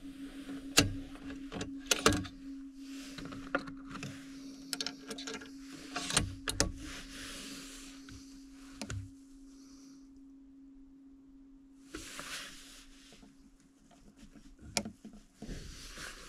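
Metallic clicks and sliding handling sounds from a Tikka T3x TAC A1 bolt-action rifle being worked. The two sharpest clicks come about one and two seconds in. A steady low hum runs underneath.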